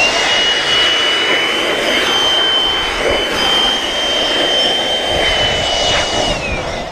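Cordless leaf blower running at full speed, a high steady whine over a rush of air, blown along the base of a windshield and cowl; the whine winds down near the end as the blower is let off.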